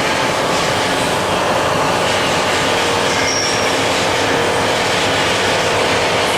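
Steady mechanical running noise and hiss from a powered-up CNC horizontal boring mill in a machine shop, with a faint steady hum under it.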